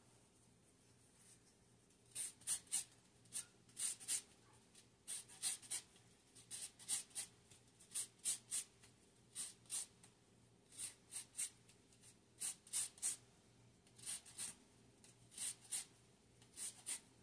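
Lemon being zested on a long metal rasp grater: short scraping strokes, mostly in quick twos and threes, starting about two seconds in.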